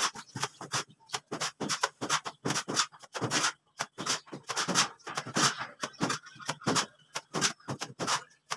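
Wet cement mortar being scooped from a pan and thrown onto a concrete ceiling as a rough dash coat: an irregular run of wet slaps and scrapes, about three a second.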